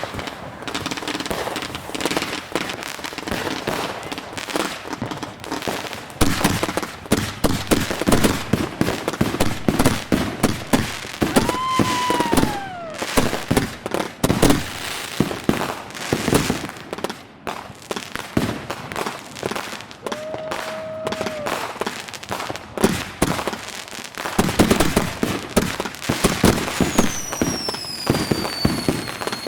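Consumer fireworks going off in a rapid, continuous barrage of bangs and crackles. Whistles glide down in pitch about twelve seconds in and again near the end.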